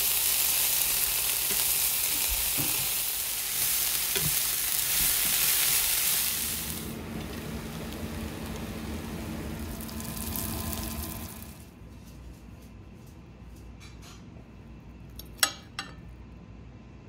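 Chopped greens sizzling in a hot frying pan as they are stirred with a wooden spatula; the sizzle is loudest for the first several seconds, weakens, and stops about twelve seconds in. Two short sharp clicks follow near the end.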